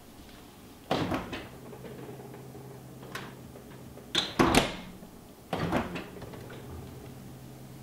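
Refrigerator door opened, shut and opened again: three sudden door sounds about a second in, around four and a half seconds in and around five and a half seconds in, with a low steady hum between them.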